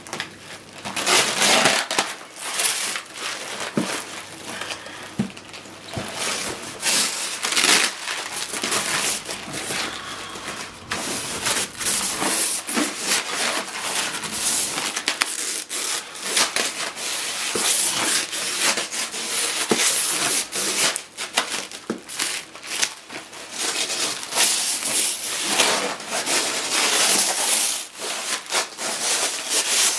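Packing material being rummaged through and pulled out of a parcel by hand: continuous crunching, crinkling and rustling with many sharp crackles.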